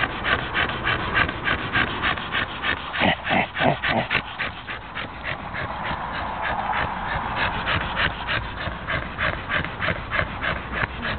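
Staffordshire Bull Terrier panting rapidly, about four breaths a second, with a few short whimpers about three seconds in.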